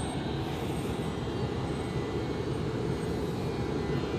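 Siemens Vectron electric locomotive hauling container tank wagons, rolling slowly past: a steady low rumble with faint steady tones above it.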